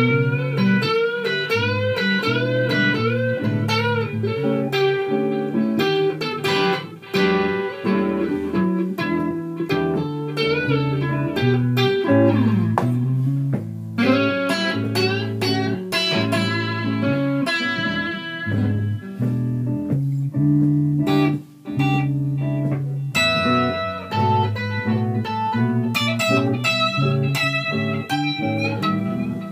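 Chicane Dirtbox box-bodied guitar played solo as single-note picked lines and chords. The notes waver and bend near the start, and the pitch slides down about halfway through.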